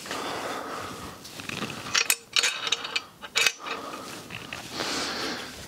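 Metal clinks and knocks from a motorcycle's tubular crash bar being handled and fitted against the bike, with several sharp clicks between about two and three and a half seconds in.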